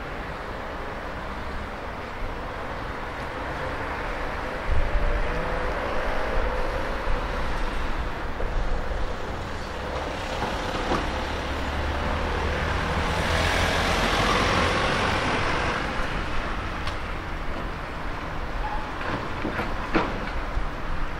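Street traffic: a steady background of road noise with a low rumble, and a vehicle passing close by, loudest about two-thirds of the way through.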